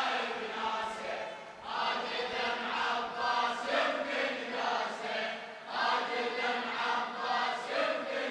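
A congregation chanting a Shia latmiyya mourning refrain together in unison. It comes in long sung phrases with short breaks between them.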